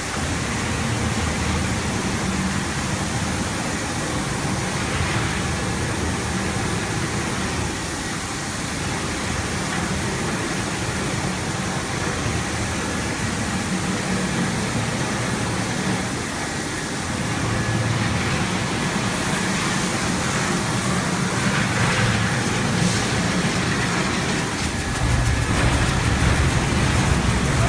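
Industrial carpet washing machine running with a steady, dense mechanical noise and a low hum, which gets louder near the end.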